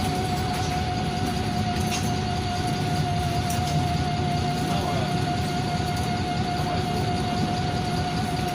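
NefAZ 5299 city bus heard from inside the cabin while driving: a steady low rumble of the Cummins diesel and the road, with a steady high whine over it.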